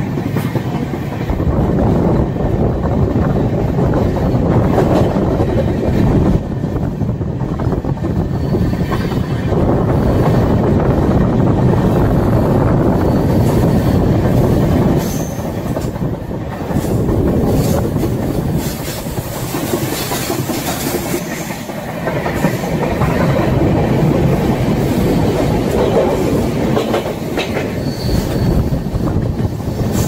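Konark Express passenger train running along the rails, heard from on board: a loud, continuous rumble of wheels on track that eases briefly a couple of times.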